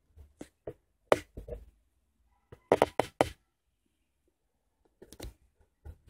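Scattered sharp knocks and clicks of objects being handled, with a quick run of about four knocks around three seconds in and a couple more near the end.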